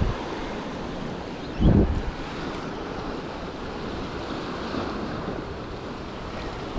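Sea surf washing against a rocky shore, with wind buffeting the microphone. A short low bump stands out a little under two seconds in.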